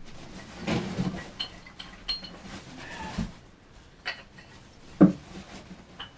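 Rummaging among small metal tools: scattered light metallic clinks and knocks, the loudest knock about five seconds in.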